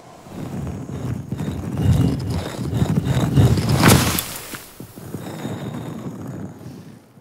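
Cartoon sound effect of a stone staircase sliding out of a giant stone statue's mouth: a grinding rumble with rapid clattering knocks as the steps come out. It is loudest about four seconds in, then drops to a lower rumble that fades away near the end.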